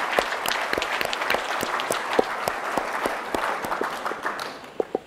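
A roomful of people applauding, dense clapping celebrating the spacecraft's all-nominal status reports. It thins out about four and a half seconds in, leaving a few last claps.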